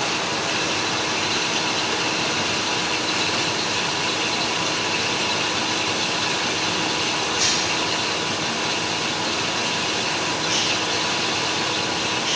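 Lathe machine running with a steady mechanical noise and a faint steady hum, with two brief squeals about seven and a half and ten and a half seconds in.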